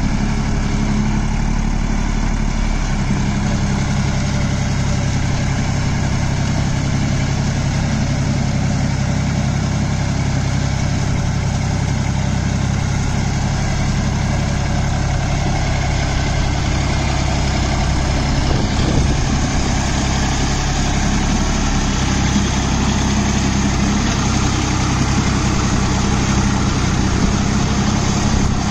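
John Deere 5045D tractor's three-cylinder diesel engine running steadily under load, driving a Maschio puddling rotary tiller through a flooded paddy field.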